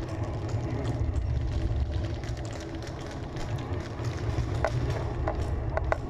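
Wind buffeting an action camera's microphone: a steady low rumble, with a few brief high chirps near the end.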